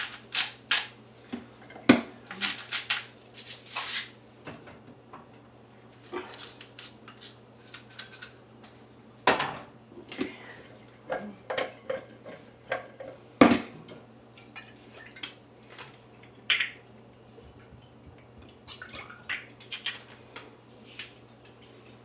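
Kitchen dishes and utensils clinking and knocking irregularly, with the loudest knocks about 2, 9 and 13 seconds in, over a faint steady low hum.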